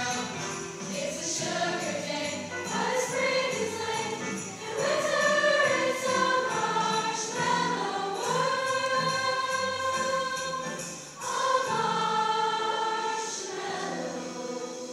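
Middle school choir singing a holiday song, with long held notes in the middle of the passage and a brief break about eleven seconds in.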